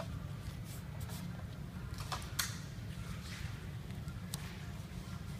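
Blue masking tape being handled, torn and pressed onto a rolled vinyl banner: a few short, scattered rustles and crackles over a steady low hum.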